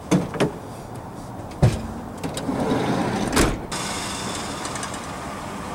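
BMX bike being ridden: a couple of sharp knocks, a hard thump like a landing, then rough rolling and clattering with one more loud knock. About two-thirds of the way through, this gives way to a steady hiss.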